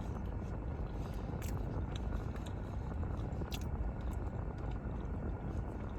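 Chewing and a few crisp crunches of food close to the microphone, over a steady low rumble inside a car cabin.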